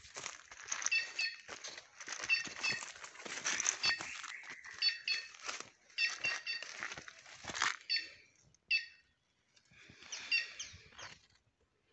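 Footsteps crunching through dry leaf litter, with short high chirps repeated in pairs and threes over them. The crunching pauses about eight seconds in and comes back briefly near the end.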